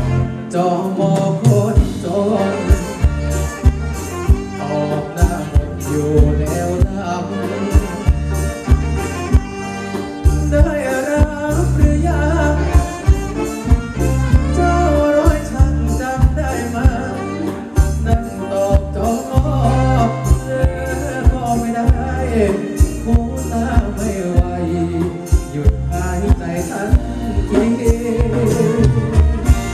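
Live Thai band playing ramwong dance music on electric guitars and drum kit, with a singing voice over a steady, even drum beat and bass.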